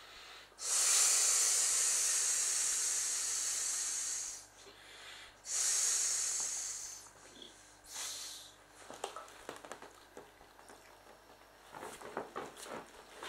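Breath blown hard into the valve of an inflatable vinyl clownfish pool toy: two long hissing blows and a short one. Then crackling of the vinyl as the toy is handled.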